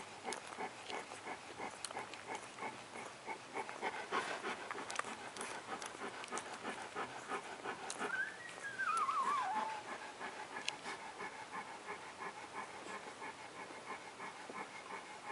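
Newborn puppies suckling at their mother, a continual run of quick little clicking suckling sounds. About eight seconds in, one puppy gives a single wavering whine, nearly two seconds long, that falls in pitch.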